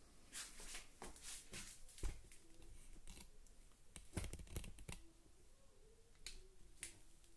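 Faint scattered clicks and rustles of handling in a small room, the loudest about two seconds in and again around four to five seconds in, with a faint wavering tone in the second half.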